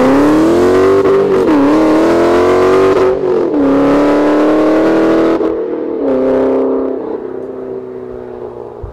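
Car engine accelerating hard through the gears. Its pitch climbs, then drops at each of three upshifts, and the sound fades away over the last couple of seconds.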